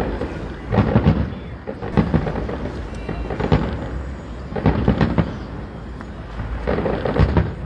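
Aerial fireworks exploding: a series of booms at irregular spacing, about one every second or so, with low rumbling between them.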